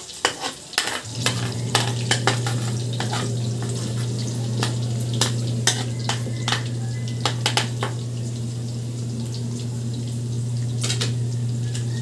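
A metal spatula scrapes and knocks against a wok as chopped pieces are stir-fried in sizzling oil. The clicks come irregularly and are thickest in the first few seconds. A steady low hum runs underneath from about a second in.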